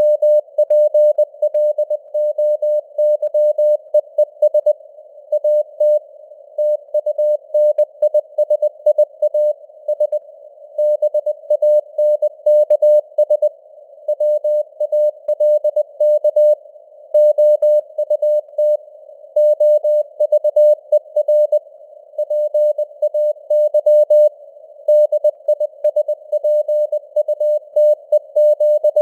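Morse code sent at 20 words per minute: a single mid-pitched beep keyed on and off in dots and dashes, over a narrow band of simulated radio noise, with the signal strength fading up and down (QSB) like a received CW signal.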